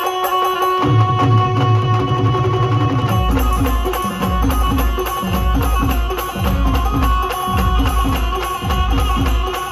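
Loud live band music from keyboards played through a truck-mounted speaker system: a held keyboard chord, with heavy bass coming in about a second in and a deep pounding beat from about three seconds in.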